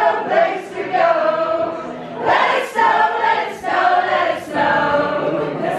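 Live singing to an acoustic guitar, a woman's voice with the crowd singing along, in sustained phrases.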